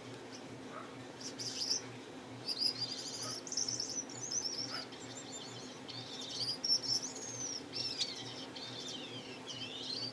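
A small cage finch singing: rapid high-pitched trills and chirps, with falling whistled sweeps near the end, starting about a second in, over a faint steady low hum.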